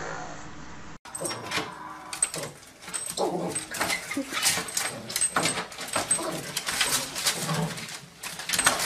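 A dog whimpering, with many irregular knocks and rattles as pets leap and paw at a door and its lever handle.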